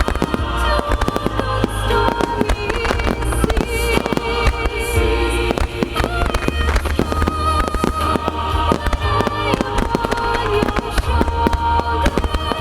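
Starmine fireworks finale: a dense, continuous barrage of bursts and crackling, many bangs overlapping, over music played to accompany the display.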